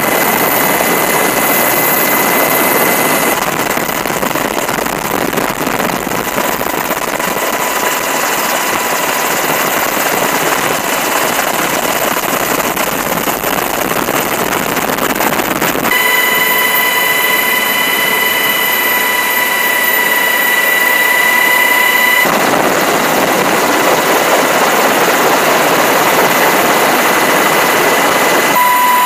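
UH-60 Black Hawk helicopter in flight, heard from the cabin: a steady rush of turbine and rotor noise with a high, steady whine. The whine's pitch and the noise shift abruptly three times.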